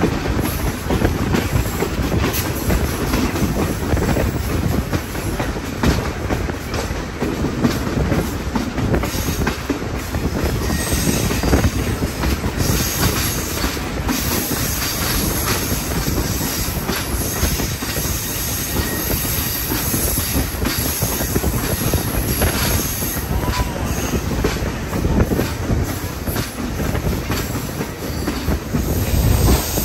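Passenger train rolling along, heard from aboard: a steady rumble of wheels on rail with irregular clicks and clacks over the track.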